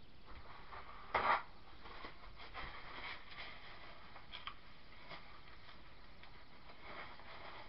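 Faint handling noise as gloved hands rub and scrape at a wooden soap mold, with one short louder bump about a second in.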